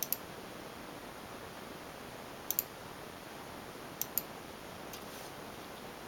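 Small plastic button clicked three times, each a sharp press-and-release pair of clicks: at the start, about two and a half seconds in, and about four seconds in, with a fainter tick near the end. Low room hiss lies underneath.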